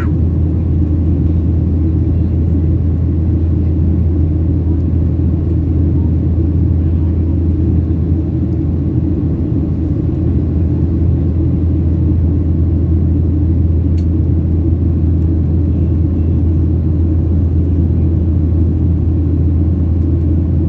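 Steady low drone inside the cabin of a Boeing 737-800 in flight: engine and airflow noise.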